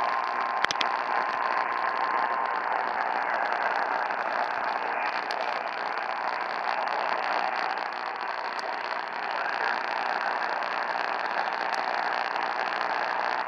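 Radio receiver hiss: steady static from a weak, noisy broadcast signal. A faint steady tone fades out in the first couple of seconds, and there is a single click early on.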